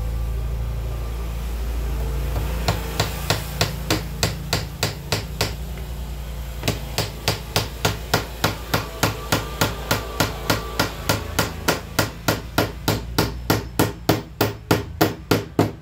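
Claw hammer tapping in quick, light, even strikes along the edge of a glass pane in a wooden door sash, with the hammer head held flat against the glass to set the small fasteners that hold the new glass. The tapping starts about three seconds in at roughly three strikes a second, stops briefly near the middle, then runs on steadily over a low hum.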